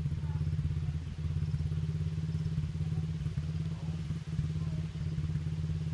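Honda 50 mini dirt bike's small single-cylinder four-stroke engine idling steadily.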